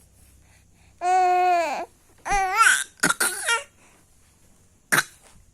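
A baby making small deliberate pretend coughs between babbling calls: a drawn-out call about a second in, a wavering call, a few short husky coughs, and one short sharp cough near the end.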